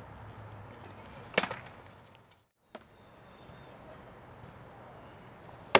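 Two sharp wooden cracks of rattan sword blows in armoured sword-and-shield sparring, one about a second and a half in and a louder one near the end. The sound cuts out completely for a moment in the middle.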